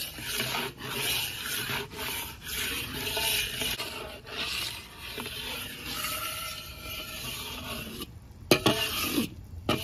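A spatula stirring and scraping gram flour as it roasts in oil in a kadhai, an irregular rasping scrape against the pan. The scraping breaks off briefly twice near the end.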